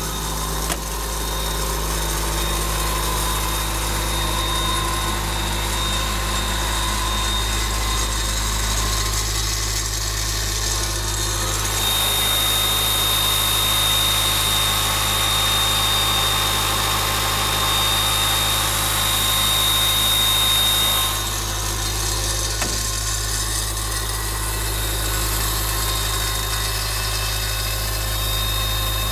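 John Deere four-cylinder diesel of an Ingersoll Rand 185 portable air compressor running steadily at idle. For about ten seconds in the middle a high steady whine and a hiss grow louder.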